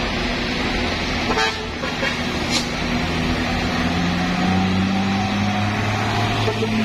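Diesel truck engine running as a tanker truck pulls past, its engine note rising through the second half. A short horn toot about a second and a half in.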